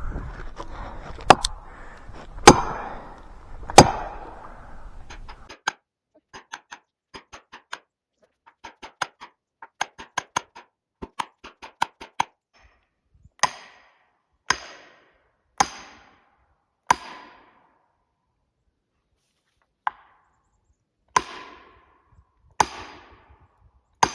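Steel felling wedges being struck in the back cut of a leaning spruce to tip it against its lean. Sharp ringing metal strikes about a second apart, with a run of lighter, quicker taps in between.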